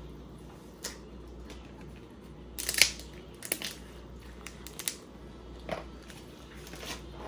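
Crab leg shells being cracked and snapped apart, in scattered sharp cracks, the loudest about two and a half seconds in.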